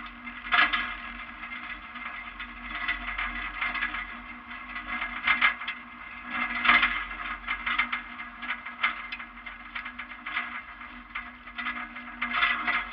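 A bus with a 12-valve diesel engine driving on a dirt road, heard from a camera mounted outside beside a wheel: a steady engine drone under uneven rushing and rattling noise that swells and fades, loudest about half a second in and about seven seconds in.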